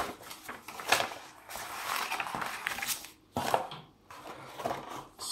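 Glossy paper maps and cardboard being handled: a folded map crinkles and rustles as it is laid into a cardboard game box. There is a sharp tap at the start and another about a second in, and a knock at about three and a half seconds.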